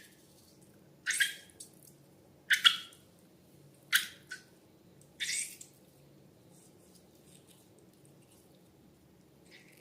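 Slime being squished and worked by hand: short wet squelching, crackling bursts, four of them in the first six seconds, then a faint one near the end.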